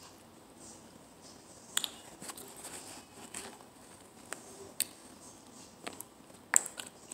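Scattered sharp clicks and taps of things being handled on the table beside the phone, about eight of them spread irregularly, the loudest near two seconds in and near the end, over a faint rustle.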